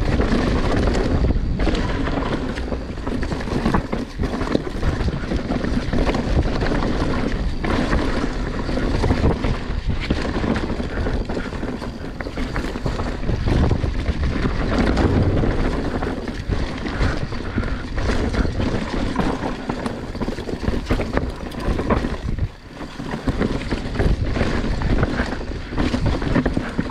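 Wind rushing over the microphone of a body-mounted camera on a fast mountain-bike run, mixed with tyre noise on the trail and frequent knocks and rattles as the bike goes over bumps. The noise briefly drops away about two-thirds of the way through.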